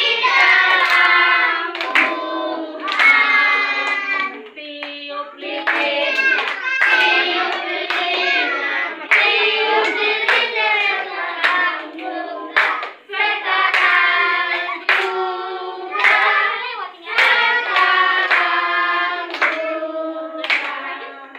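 A group of children and adults singing a birthday song together, clapping along in time.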